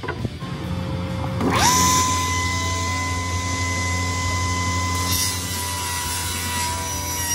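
Table saw switched on: its motor and blade spin up in a quick rising whine about a second and a half in, then run steadily at full speed, not yet cutting.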